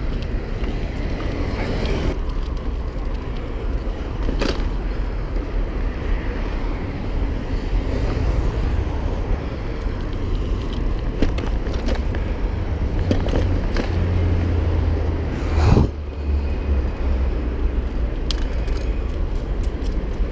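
Steady low rumble of wind and road noise while riding a bicycle in traffic, with cars passing. A few sharp knocks break through, the loudest about three-quarters of the way through.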